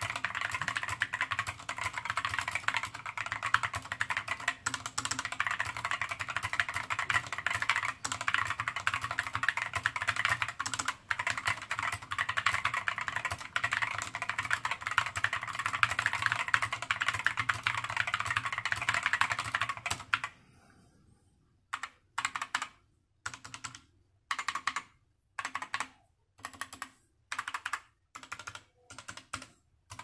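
Epomaker Skyloong SK61 60% mechanical keyboard with optical switches, typed on fast and steadily for about twenty seconds, a dense clatter of keystrokes. Then the typing stops and single keys are pressed one at a time, about one or two a second, each click separate.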